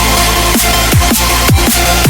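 Electronic dance music with a fast, steady beat, each beat a falling bass sweep, over a dense layer of sound.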